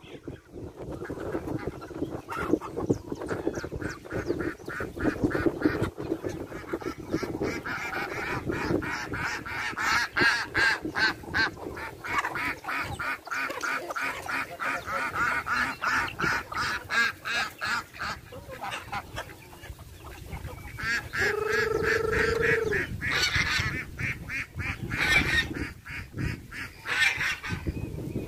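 A mixed flock of farmyard geese, ducks and chickens calling together while being fed, with repeated honking and quacking. Near the end one long, steady call stands out.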